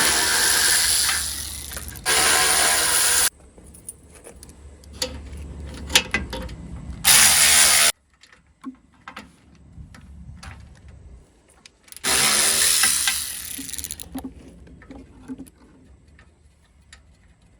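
A power tool spinning 13 mm bolts off a car's bumper reinforcement in four short runs that start and stop sharply, with metal clicks and rattles of the socket and bolts in between.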